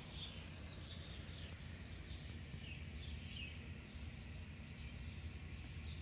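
Songbirds chirping: a run of short falling chirps, a few a second, over a steady low background rumble.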